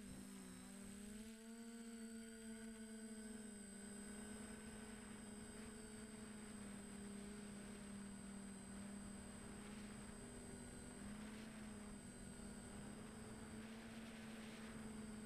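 DJI Flamewheel F450 quadcopter's motors and propellers whirring steadily as it flies, recorded by the camera on board: a steady hum with a faint high whine above it, its pitch shifting slightly in the first few seconds.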